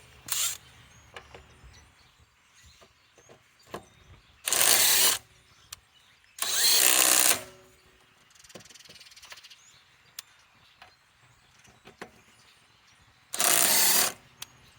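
RIDGID R8721 subcompact half-inch right angle impact wrench hammering on van lug nuts to break them loose, in four short bursts, each under a second long.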